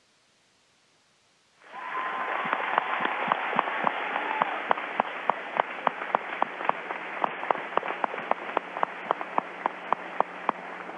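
An audience of students applauding. It starts about two seconds in after a moment of silence, with single loud claps standing out from the mass and easing off near the end. It sounds thin, cut off in the treble as over a narrow, phone-quality audio link.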